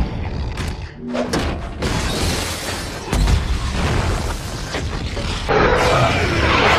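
Action-film battle sound effects: explosions and booms with crashing metal, a heavy boom about three seconds in, and denser crashing near the end.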